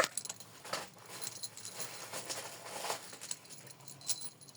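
Faint rustling with a few light clicks: Pokémon cards and their packaging being handled.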